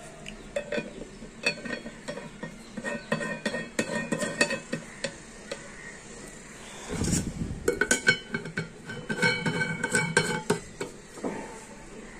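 Glass kitchen canisters with stainless-steel sleeves being handled, their steel screw lids taken off and put back: a run of clinks and scrapes of metal on glass, some ringing briefly, with a duller thump about seven seconds in.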